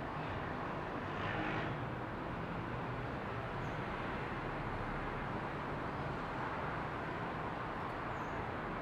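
Steady outdoor background noise, an even rushing hiss, with a short louder swell about a second in.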